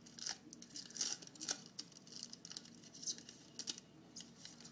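A trading card pack wrapper being torn open and crinkled by hand, in irregular sharp crackles.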